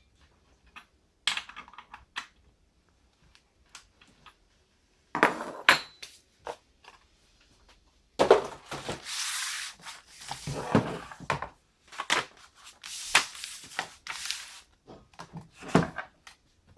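Handling noises from unboxing: scattered knocks and clicks, with longer bursts of rustling and scraping about halfway through and again near the end.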